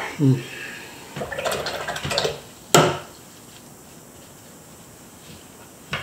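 A short falling hum from a man, then a watercolour brush being swished and rinsed in a water jar for about a second, followed by one sharp tap near three seconds in and a fainter tap near the end.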